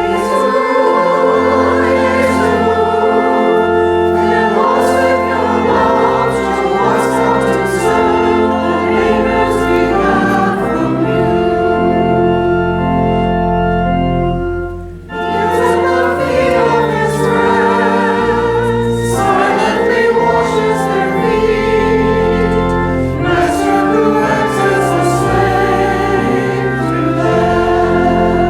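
Choir singing a hymn to organ accompaniment, sung tones over long held low organ notes. The music breaks briefly about halfway through, then resumes.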